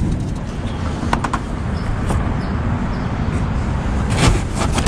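Cardboard boxes being pushed aside and scraped against each other inside a dumpster, with a few sharp clicks about a second in and a rustle near the end, over a steady low rumble.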